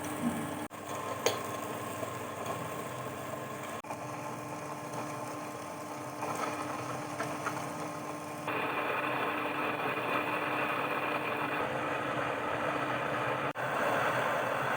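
Electric wet grinder running steadily, grinding soaked urad dal into a thick vada batter with only a little water; the sound shifts abruptly in level a few times.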